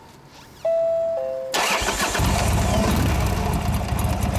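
Buell XB12Ss's air-cooled V-twin being started: a starter whine for about a second, then the engine catches about one and a half seconds in and settles into a steady, loud, lumpy idle through its factory race exhaust.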